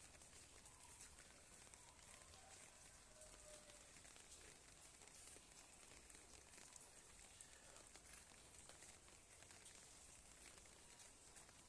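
Near silence: faint outdoor ambience, a steady high hiss with light ticks and a few faint short chirps in the first few seconds.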